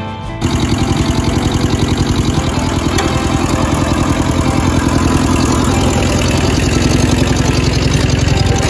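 Kubota compact tractor's diesel engine running steadily under load as it pulls a plow through the potato row, with a fast, even chugging pulse.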